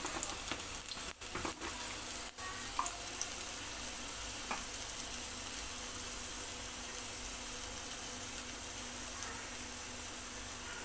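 Chopped garlic frying in hot mustard oil in a small tadka pan: a steady sizzling hiss as the garlic crackles and turns golden for a tempering.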